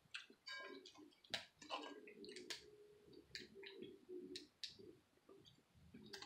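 Faint, scattered clicks and crackles of boiled shellfish shells being picked apart by hand and with a fork, with soft eating sounds in between.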